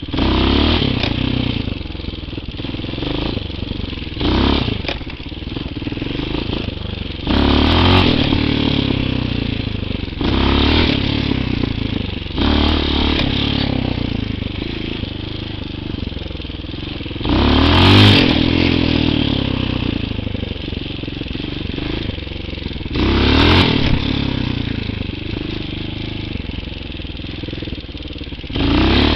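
TaoMotor TBR7 single-cylinder four-stroke enduro dirt bike being ridden. Its engine runs steadily and revs up in about eight short bursts of throttle a few seconds apart.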